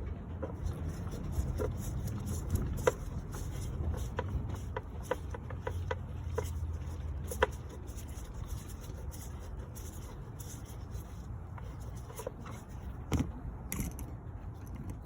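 Scattered light clicks and knocks, with a low steady rumble underneath that fades a little after the first half.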